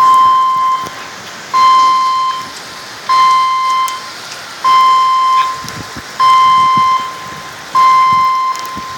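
An electronic alert beeping over and over, six long beeps about a second and a half apart, over the steady hiss of rain.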